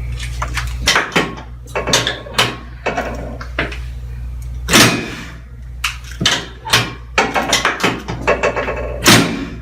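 Chiropractic drop table's section clunking down under quick adjusting thrusts during a drop adjustment of the sacrum, a series of sharp knocks with the two biggest about five seconds in and near the end.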